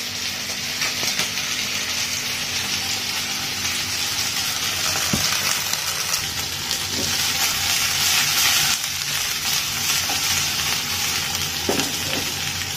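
Chicken wings sizzling steadily as they fry in hot oil in a non-stick pan.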